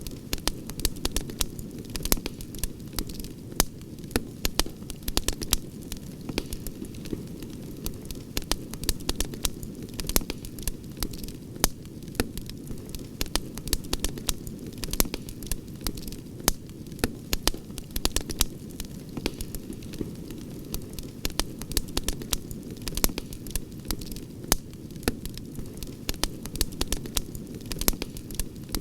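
Wood campfire crackling: a dense, irregular run of sharp pops and snaps over a steady low rumble of the burning flames.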